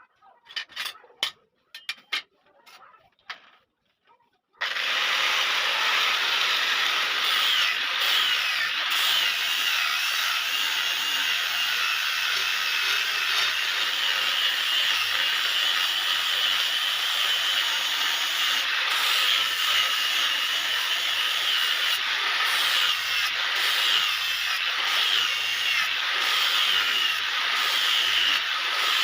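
A few light metal taps, then about four and a half seconds in an electric power tool starts up and runs steadily against iron, its pitch wavering slightly under load.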